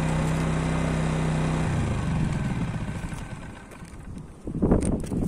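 Honda EX650 portable generator running with a steady hum, then cutting out about two seconds in and running down to a stop over the next couple of seconds. A loud burst of noise comes near the end.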